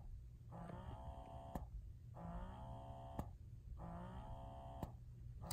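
Motif Duo electric breast pump running through its suction cycle. A motor whine rises in pitch, holds for about a second, then stops with a click. The cycle repeats about every second and a half, three times.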